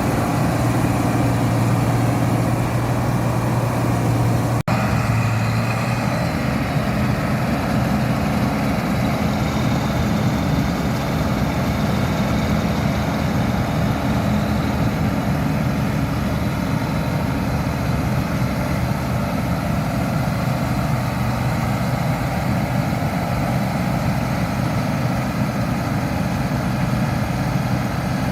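A New Holland 8070 combine harvester's engine running with a steady, heavy drone. The sound cuts out for an instant about five seconds in, and the hum shifts slightly afterwards.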